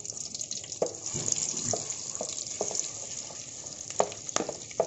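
Butter melting in hot sunflower oil in a stainless steel pan, sizzling steadily with scattered crackles and pops. A few louder clicks near the end as a wooden spatula stirs it.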